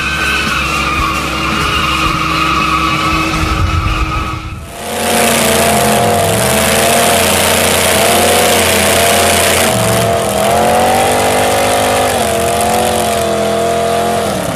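A tractor engine running at speed for the first few seconds. Then, about five seconds in, a louder sound takes over: engines held at full throttle with tyres spinning, a hissing wash under a pitch that wavers up and down, as two modified off-road trucks strain against each other in a tug-of-war.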